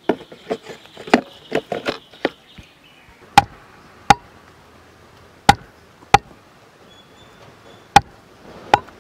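Mutton being chopped with a blade on a wooden chopping block. A quick run of knocks and clatter comes first, then single sharp chops about once a second, often in pairs.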